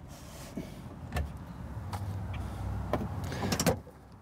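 Handling noises as a coiled water hose is pushed into a pop-up camper's exterior storage compartment: a few sharp knocks and a low rumbling scrape, ending with a couple of louder knocks near the end.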